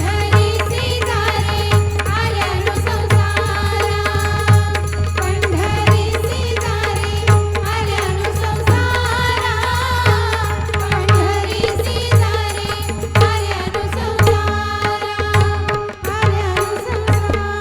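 A high voice sings an Indian devotional song with ornamented, wavering melody, accompanied by tabla and pakhawaj. A deep drum stroke falls about every second and a half under the singing.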